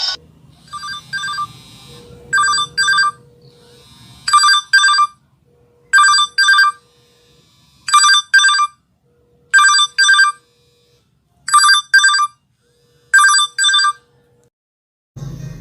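LG mobile phone ringtone imitating an old telephone bell: short double rings repeating about every two seconds, about eight times, with a steady low tone sounding between some of them.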